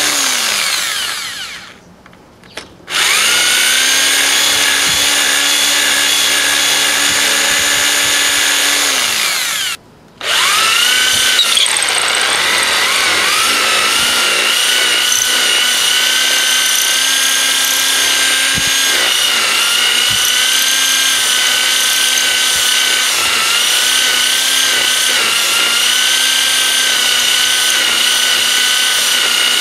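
Corded electric drill running as its bit grinds into the metal disc of a hard drive. The motor winds down and stops twice, briefly about two seconds in and again about ten seconds in, each time spinning back up and carrying on.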